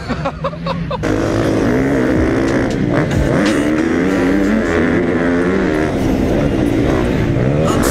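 Onboard sound of a KTM 350 SXF four-stroke motocross bike's engine running hard down a dirt track, its pitch rising and falling as the throttle is worked, with another motocross bike close alongside. Voices and a laugh come just before it starts, about a second in.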